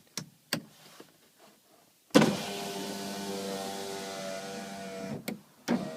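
Electric window motor in a VW Transporter T5 door, from a retrofit kit, winding the glass: a couple of clicks, then about two seconds in the motor starts suddenly and runs with a steady hum for about three seconds. It stops with a click, and the motor starts again near the end.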